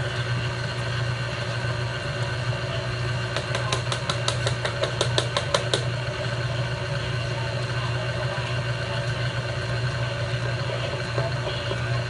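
Stand mixer's motor running steadily, its beater churning a thick, doughy batter in a steel bowl. A quick run of sharp clicks comes about three to six seconds in.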